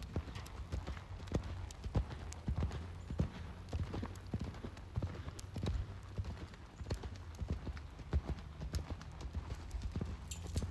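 Hoofbeats of a ridden horse cantering on sand arena footing, a steady run of dull thuds.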